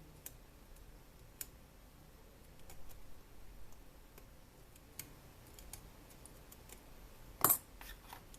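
Scattered light clicks and taps of small hard objects being handled, with one louder, sharper clack near the end.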